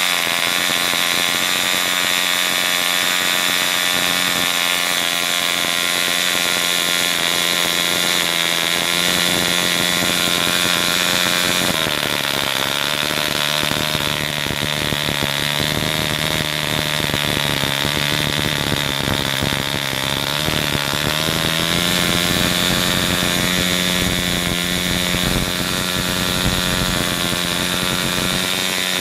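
Small two-stroke model airplane engine running flat out on a test stand with a steady high-pitched buzz. Its pitch drops a little about twelve seconds in and rises back about ten seconds later as its settings are adjusted.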